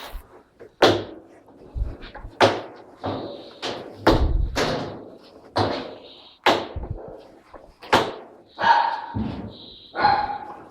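Plastic tub cover of a GE 13 kg washing machine being pressed and knocked down into place: a series of about a dozen sharp knocks and thumps at uneven intervals, with some scraping of plastic near the end.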